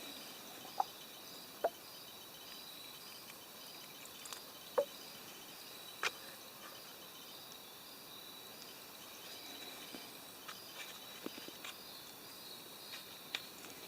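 Crickets or other insects chirring in a steady, high-pitched chorus, faint against the background. A few sharp taps cut through it, the loudest about a second in, near two seconds and near five seconds.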